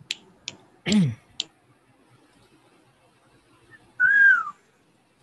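A few light clicks, like a computer mouse, then a short low vocal sound falling in pitch about a second in. About four seconds in, the loudest sound: a single high call lasting half a second, rising and then falling in pitch.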